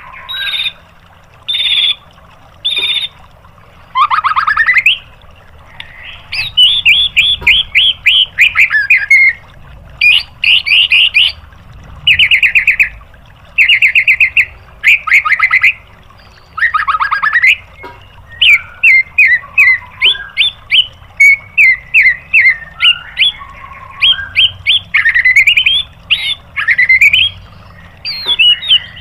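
White-rumped shama (murai batu) singing an agitated, fast song. It comes in phrases of rapid-fire repeated notes ('tembakan'), trills and sweeping whistles, each half a second to a second and a half long, with short pauses between them.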